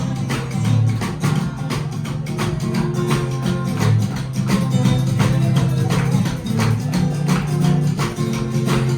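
Live rock 'n' roll band playing an instrumental passage without vocals: a strong bass line under guitar, with a steady drum beat.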